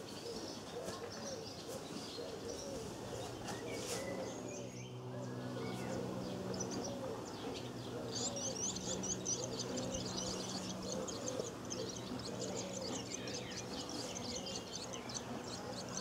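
Barn swallow nestlings begging for food with rapid, high-pitched chirping that breaks out about halfway through as a parent arrives at the nest. A lower call repeats evenly underneath.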